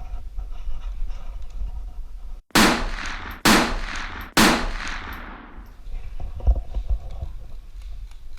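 Three loud gunshots about a second apart, each followed by a long fading echo, over low background rumble.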